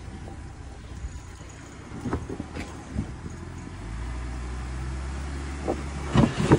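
Jeep Gladiator's engine running at crawling speed over rocks, pulling harder and louder from about four seconds in, with scattered knocks and scrapes, the loudest near the end.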